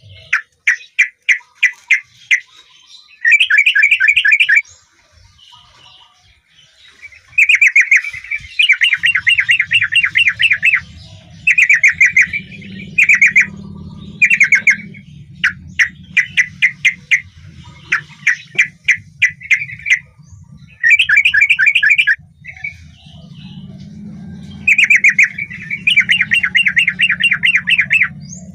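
Yellow-vented bulbul (trucukan) singing: short phrases of fast repeated notes, one after another with brief gaps. A steady low hum runs beneath from about nine seconds in.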